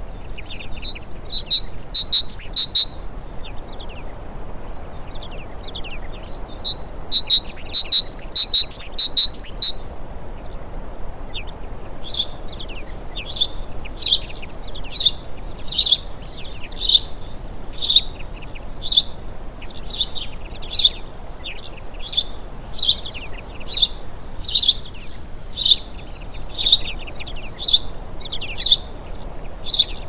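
Small songbirds calling. Two loud bursts of rapid, repeated high notes come near the start and again about seven seconds in. After that comes a steady series of single sharp chirps, about one a second.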